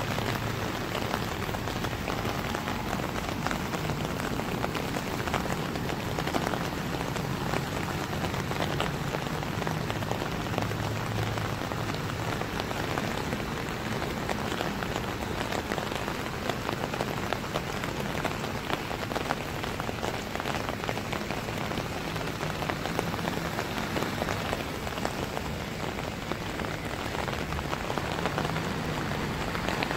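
Heavy rain pouring steadily onto a flooded street, a dense even hiss with no let-up.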